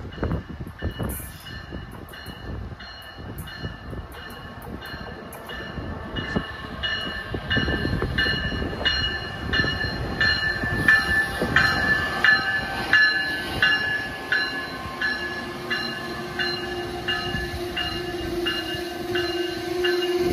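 Amtrak ACS-64 electric locomotive approaching and passing through a station, its bell ringing steadily about twice a second over the rumble of the train, which grows louder about a third of the way in. A steady hum rises near the end as the locomotive draws alongside.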